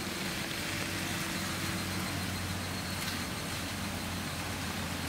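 A car driving past on a wet road: a steady hiss of tyres on wet tarmac, with a low steady hum underneath.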